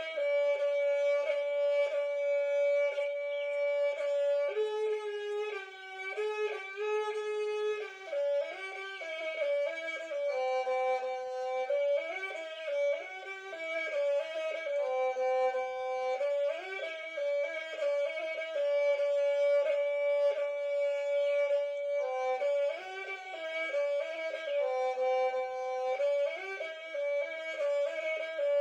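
Santal banam, a bowed folk fiddle, played solo: a lagṛe tune of held notes stepping up and down.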